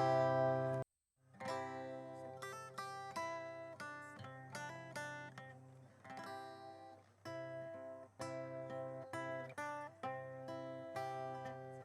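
Background music: acoustic guitar picking single notes at a moderate pace, cutting out completely for a moment about a second in, then carrying on.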